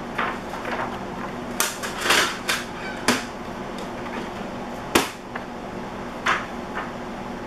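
A sheet of paper rustling and tapping against the plastic auto sheet feeder tray of an Epson F570 printer as it is handled: a string of short, sharp rustles and light knocks, over a steady low hum.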